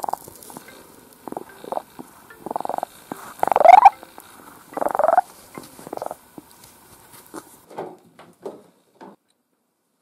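Young Siamese-mix kitten purring and giving short, purr-laden mews, about six of them, the loudest a little after three and a half seconds with a pitch that rises and then falls. The later ones are quieter.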